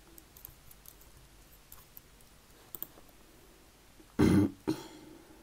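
A few faint computer-mouse clicks, then about four seconds in a loud, short non-speech vocal noise from a person, in two parts half a second apart.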